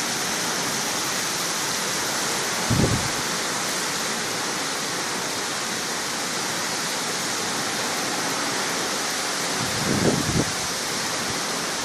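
Heavy rain pouring down in a steady, even hiss. Two brief low thumps break through, about three seconds in and again near ten seconds.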